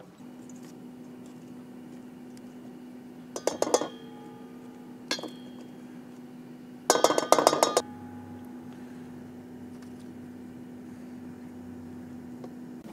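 Metal tongs clinking against a stainless steel mixing bowl as fried chicken wings are tossed in sauce. There are a few quick clinks about three and a half seconds in, a single one near five seconds, and a longer run of clinks around seven seconds, all over a steady low hum.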